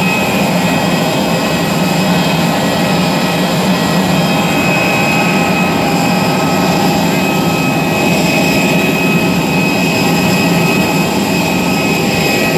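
Jet-turbine noise of a parked airliner running steadily: several high whining tones held over a low rumble, with no change in pitch or level.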